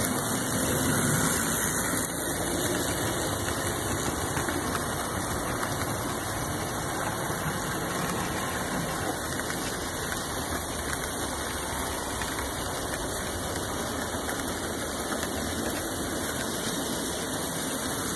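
HO scale model trains running on the track, a steady whir and rumble of the locomotive motors and wheels, a little louder in the first couple of seconds as the locomotives pass the crossing.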